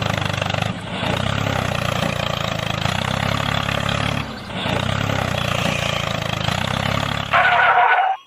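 A vehicle engine running steadily, dipping briefly twice, then growing louder and higher-pitched near the end before cutting off abruptly.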